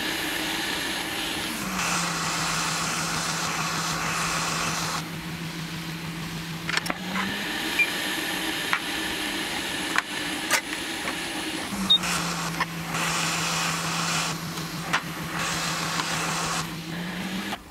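Hot air rework station blowing, its fan humming steadily with a hiss of air; it starts and stops twice, the pitch sliding as the fan spins up and down. Light clicks of metal tools on the board come in between.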